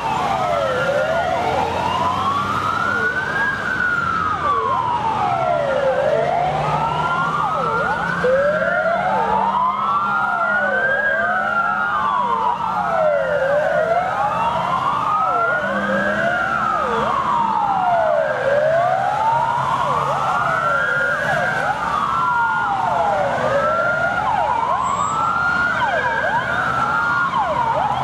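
Fire engine siren wailing, rising and falling slowly about once every five seconds, with a second, overlapping wail out of step with the first, over a faint engine hum.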